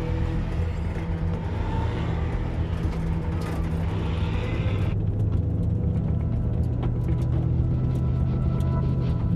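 Steady low rumble of a race car engine idling. About five seconds in the higher sound drops away and the rumble turns muffled, as heard from inside the car's cockpit.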